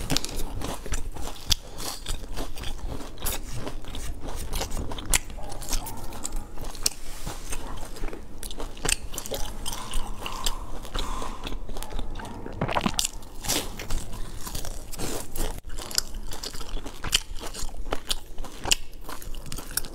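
Biting into and chewing crisp round pastries with a crumb-coated rim: a dense run of sharp crunches and crackles, with wet mouth sounds between them.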